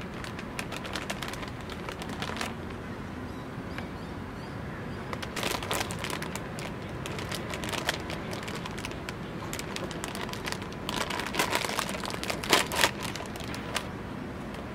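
Plastic potato-chip bag crinkling and rustling in bursts as it is handled and pulled open. Near the end there is crunching as a chip is bitten.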